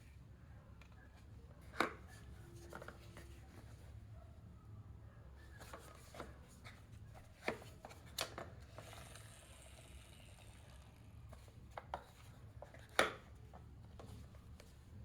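Small toy cars being handled and set down on a hard surface: a few scattered light knocks and clicks over a low steady hum, the loudest knocks about two seconds in and near the end.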